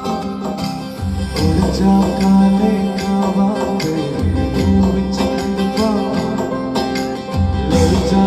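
Background music with a steady beat, a sung vocal line and plucked strings.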